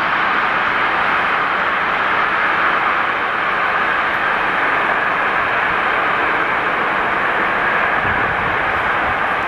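Long freight train rolling past in the distance, its wheels on the rails giving a steady, even noise with no horn or engine note standing out.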